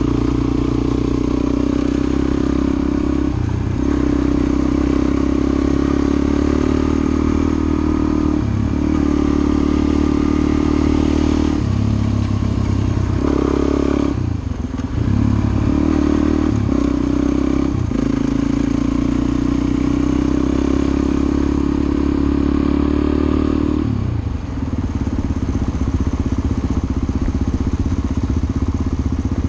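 Suzuki DR-Z400 single-cylinder four-stroke dual-sport motorcycle engine running as the bike rides on a gravel road. The engine note dips briefly several times, with the longest lulls about halfway through and near the end.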